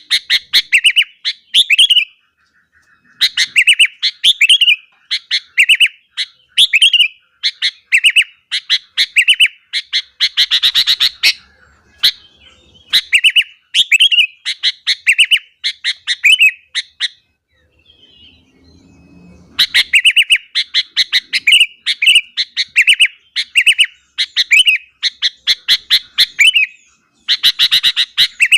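Sooty-headed bulbul (kutilang) singing vigorously: runs of short, repeated chirping notes, several a second, with a brief pause near the start and a longer one about two-thirds of the way through.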